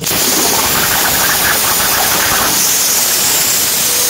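CNC plasma cutter torch hissing steadily as it cuts steel plate.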